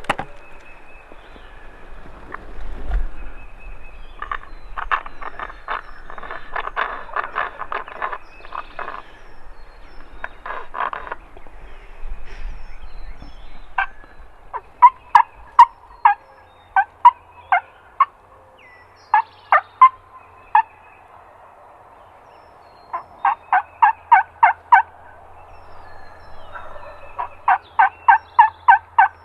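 Wild turkey calling: a stretch of quieter, rapid rattling turkey notes, then, from about halfway, loud runs of sharp turkey yelps, each run five to eight evenly spaced notes.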